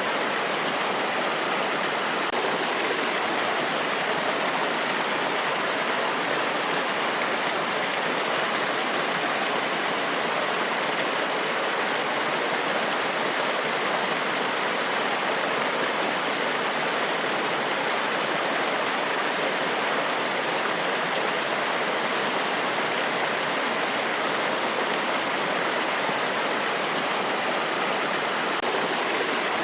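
Small forest waterfall: water cascading over rocks in a steady, even rush with little deep rumble.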